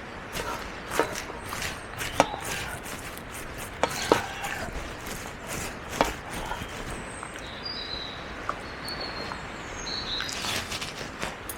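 Irregular clicks, taps and scrapes of cutlery on a camp plate during a meal, a few knocks a second with short pauses between.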